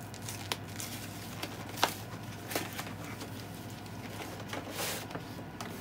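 Cardboard mailer being opened by hand: scattered crackles and rustles of paper and cardboard, with a sharp snap about two seconds in and a short rustle near the end.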